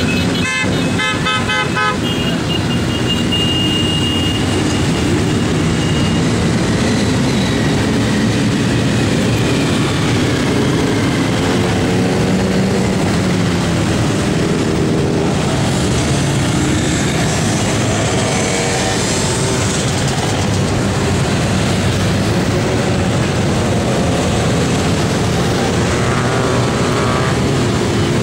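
A long stream of motorcycles riding past, many engines running together with revs rising and falling. Horns toot in the first few seconds.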